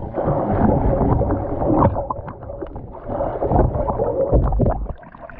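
Water splashing and gurgling close to the microphone, loud and irregular with low thumps, dying down about five seconds in.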